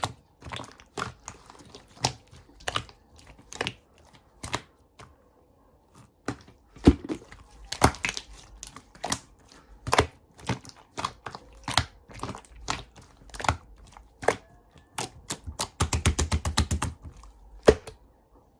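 Sharp, irregular clicks and crackles from something being handled, with a quick run of clicks near the end.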